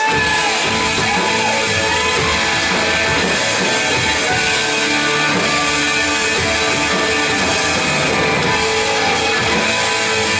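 Church worship band playing an instrumental passage on electric guitar and drum kit, cutting in loud all at once as the singing stops and running on steadily without vocals.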